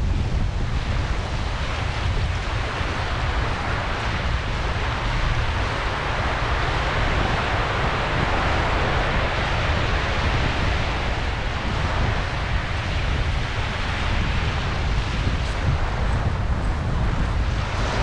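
Wind buffeting the microphone over the steady wash of surf on a beach, the surf noise swelling around the middle.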